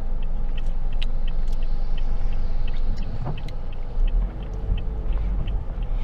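Low rumble of a car heard from inside the cabin, growing louder about four seconds in, with faint, regular ticking about three times a second.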